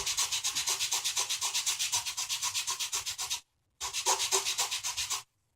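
Hand sanding of a small wooden model-ship deck plank on sandpaper: quick, even back-and-forth rasping strokes, several a second. They stop briefly a little past halfway, resume for a second or so, then stop.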